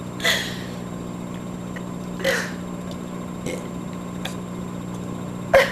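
A woman burping letters of the alphabet: two short burps about a quarter second and about two seconds in, a few faint small sounds between them, and a sharp, brief one near the end.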